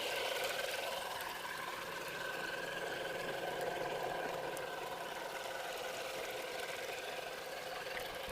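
Axial AX10 RC crawler's electric motor and drivetrain whining steadily as its Super Swamper tires spin in mud.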